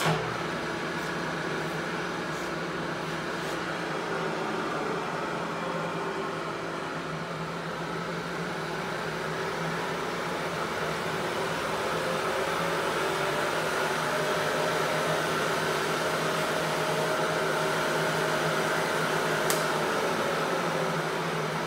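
Bridgeport Series 1 milling machine's spindle motor switched on, starting abruptly and then running with a steady hum and whine. Partway through, the whine shifts slightly in pitch and the sound grows a little louder as the variable-speed head is adjusted, with a single click near the end.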